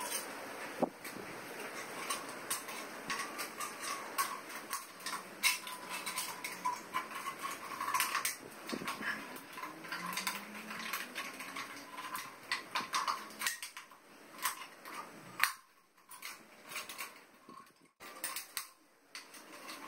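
Irregular light metallic clicks and clinks of an aluminium drink can and wire being handled and fitted to a motorcycle exhaust guard.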